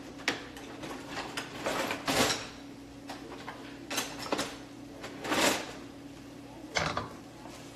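Kitchen handling clatter: dishes, utensils and a drawer or cupboard being worked at a counter, heard as about half a dozen separate knocks and scrapes at irregular spacing.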